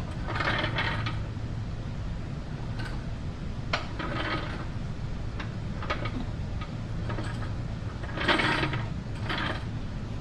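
A jack being worked to raise a Can-Am Spyder three-wheeler: a few short mechanical strokes every few seconds with sharp clicks between them, over a steady low hum.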